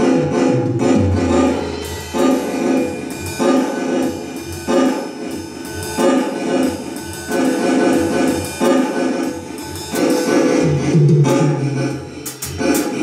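Electronic drum kit played through its sound module: a paradiddle groove split between hi-hat and snare over the bass drum, repeating in steady bars to a metronome tempo. Tom fills stepping down in pitch break in about half a second in and again near the end.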